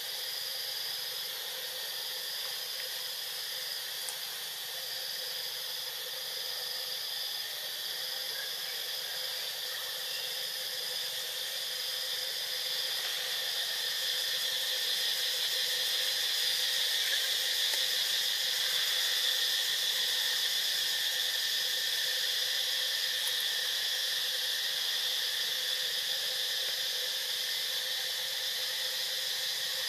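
Steady chorus of forest insects: several high-pitched drones layered together, one of them pulsing with short breaks, growing a little louder about halfway through.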